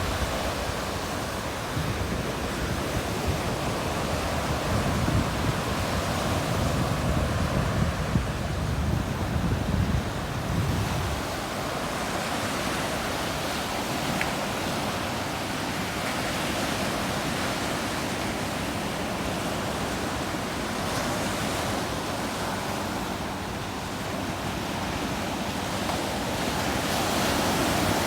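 Ocean surf breaking on a sandy beach, a continuous wash of waves. A heavier low rumble of breaking waves comes in the first third, and another wave swells up near the end.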